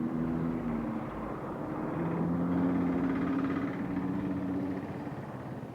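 A motor vehicle's engine running as it passes close by, growing louder to a peak about halfway through and then fading.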